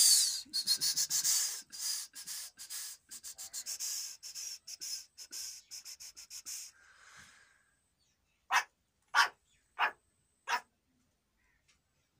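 A dog breathing close up in quick, noisy sniffing breaths, about five a second, fading away over several seconds. Near the end come four separate, sharper sniffs about half a second apart.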